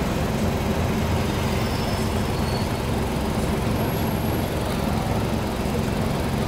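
Old city bus's diesel engine running with a steady low rumble, heard from inside the passenger cabin.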